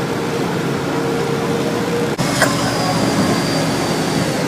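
A boat's engine runs steadily under the rush of river water along the hull. The sound breaks off for an instant about two seconds in, with a click.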